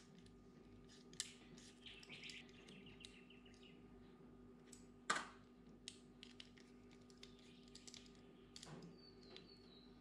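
Faint, scattered metallic clicks and taps of a 3 mm hex key working in the cage bolts of an MKS XC-III bicycle pedal as the cage is unbolted, the loudest about five seconds in.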